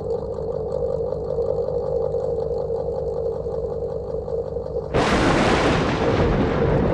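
Old house fan running with a steady hum and low rumble. About five seconds in, a loud rushing noise suddenly comes in over it and carries on.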